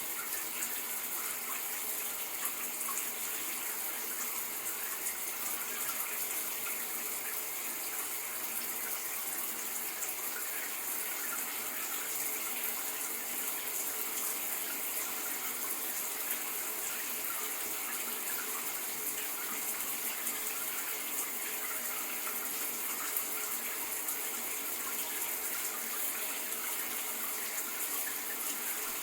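Shower running steadily: water spraying and splashing in an even hiss, brightest in its high end, with no breaks.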